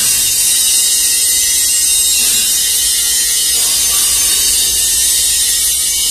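Honey powder spray dryer running: a loud, steady high-pitched machine hiss with a low hum underneath, unchanging throughout.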